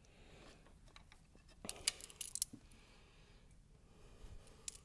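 A quick burst of sharp metallic clicks and clinks about two seconds in, with a couple more near the end: locking pliers being released from a motorcycle clutch cable and handled.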